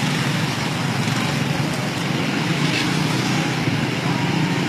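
Tour bus engine running steadily, a low rumble amid street traffic noise.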